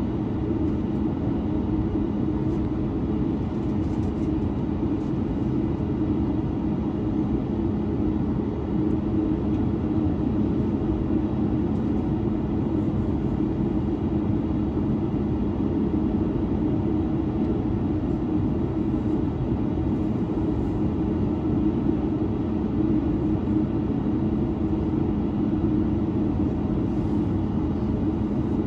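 Boeing 737-9 Max with its CFM LEAP-1B engines running steadily, heard as an even drone inside the cabin with a constant low hum, without spooling up.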